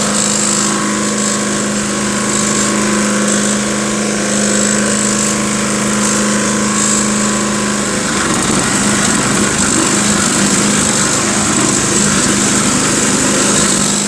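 Honda HRR lawn mower's single-cylinder four-stroke engine running steadily on a test run after a new drive belt has been fitted. About eight seconds in, its steady tone turns rougher.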